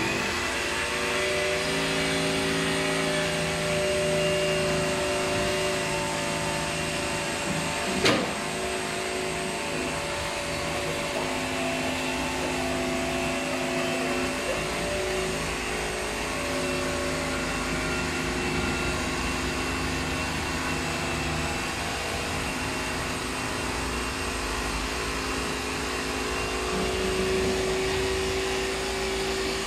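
Dust-extraction vacuum on a fibre-cement cutting tool running steadily, a drone with several hum tones that shift in pitch now and then. One sharp knock about 8 seconds in.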